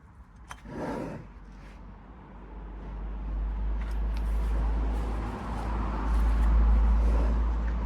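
A motor vehicle going past, a low rumble with broad noise that builds from about two seconds in and is loudest near the end. A click and a short rustle come near the start.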